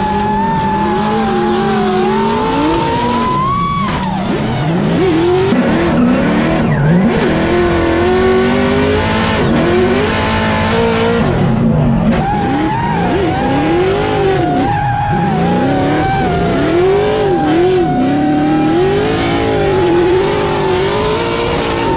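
Drift cars sliding in tandem, their engines revving up and down over and over as the drivers work the throttle, with tyres squealing and skidding through the slide. A steady high whine runs over the first few seconds and again through the second half.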